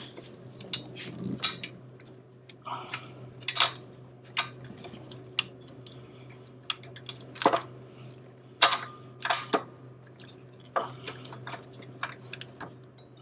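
Irregular light metallic clicks and knocks as an alternator is shifted in its mounting bracket and its lower mounting bolt is fed through and started by hand. A steady low hum runs underneath.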